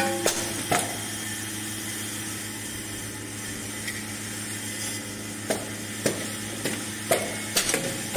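Automatic wooden clothespin and spring assembling machine running: a steady low hum from its vibratory bowl feeder under sharp clacks from its pneumatic assembly head. Two clacks come at the start, then a pause of several seconds, then a run of about six, roughly two a second.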